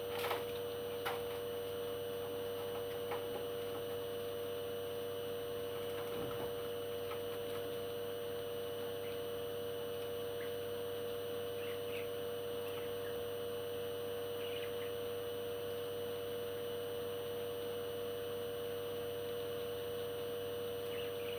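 A steady electrical-sounding hum, one fixed tone with fainter ones around it, with two soft clicks about a second in and a few faint short chirps later.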